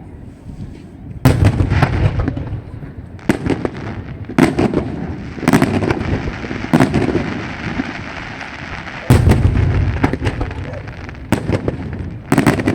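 Aerial fireworks display: shells bursting in loud bangs every one to two seconds, the loudest about a second in and again about nine seconds in, with a crackling hiss between the bangs.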